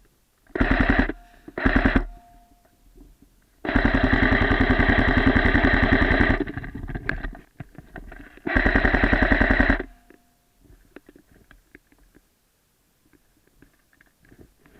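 Airsoft gun firing on full auto: two short bursts, then a long burst of nearly three seconds, then another burst of about a second.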